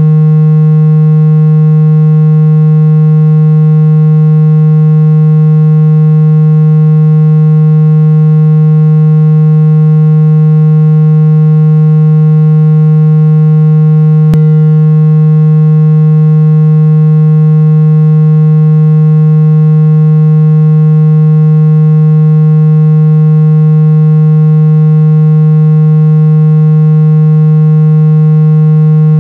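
Synthetic water-ejection tone for clearing water out of a phone speaker: one loud, low, buzzing tone held at a fixed pitch, with a single tiny click about halfway through.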